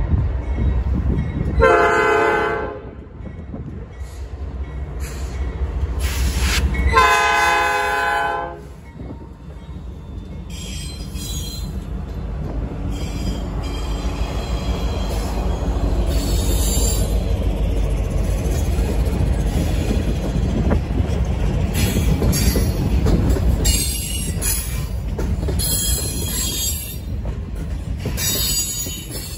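Norfolk Southern freight train passing close by: the lead diesel locomotive's air horn sounds twice, a short blast about two seconds in and a longer one around seven seconds. The locomotives, one of them a BNSF ES44C4, then rumble past, and the freight cars roll by with clatter and high wheel squeal in the second half.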